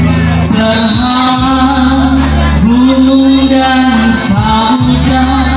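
A male singer sings into a microphone over loud amplified live accompaniment, with held bass notes that change every second or so under the melody, played through a PA system.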